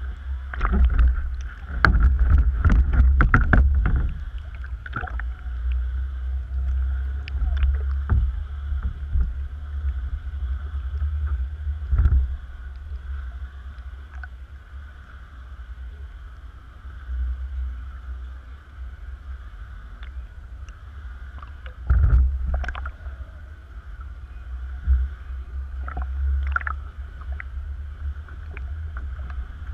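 Water slapping and splashing against a kayak and its paddle blades as it is paddled through choppy water, with wind rumbling on the bow-mounted camera's microphone. The splashes come thickest in the first few seconds, then more sparsely.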